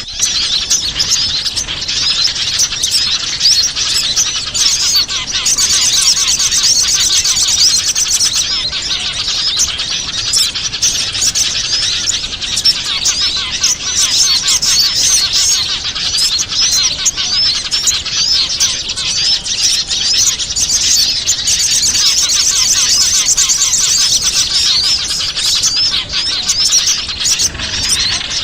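Dense, unbroken chorus of many small birds chirping and twittering, with rapid high trills standing out twice. This is a bird-luring (pikat) recording, used to draw wild small birds in.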